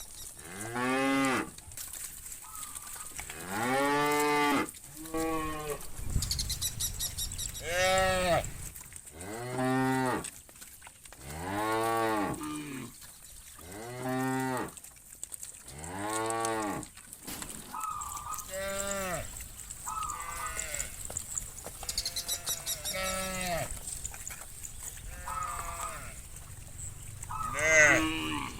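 Cattle in a herd mooing over and over, a long moo roughly every two seconds. Each call rises and falls in pitch, with fainter shorter moos from other cows in between.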